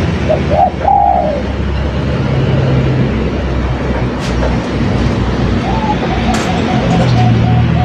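Spotted dove cooing: a quick run of short coos about half a second in, then one long drawn-out note near the end. All of it sits over a steady low rumble of background noise.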